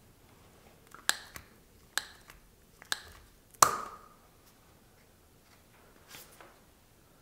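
Sharp clicks from a hand-held fixing-foam dispensing gun being worked at the door frame, about five in quick succession over the first few seconds. The last and loudest is a clack with a brief metallic ring.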